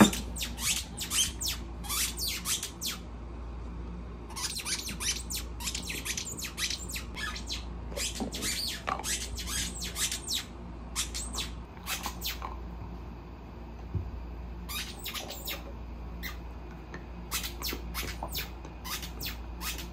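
Squeaky dog toy squeaking in quick runs of short squeaks with pauses between them, as a dog chews on it.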